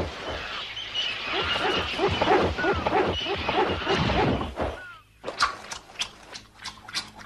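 Background music from an animated film, dense at first, dropping out briefly about five seconds in, then coming back as a run of short, sharp notes.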